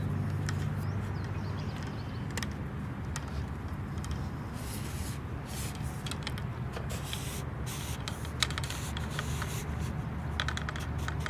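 Sections of a telescoping pole being pulled out one after another: sliding, scraping strokes and scattered clicks, over a steady low hum.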